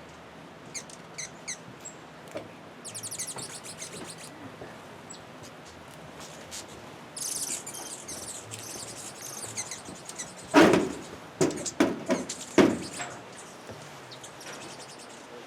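High, fast chittering trills and short chirps of hummingbirds around a feeder. About two-thirds through come several loud, sharp knocks in quick succession.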